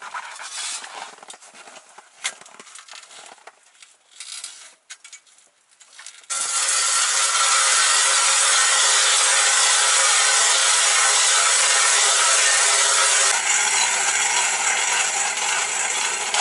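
Hand-cranked ice auger boring through ice. A few light knocks and rustles come first, then about six seconds in a loud, steady grinding scrape of the blades cutting the ice starts.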